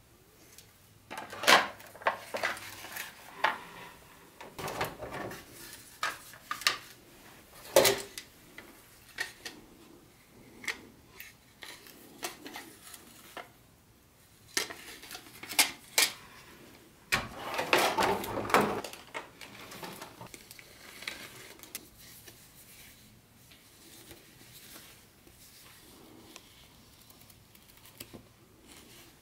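Plastic-roadbed O-gauge train track sections (Lionel FasTrack) being handled and set down: hollow plastic clacks and knocks, a few of them sharp and loud, with a longer rustle of packaging about two-thirds in and quieter paper handling near the end.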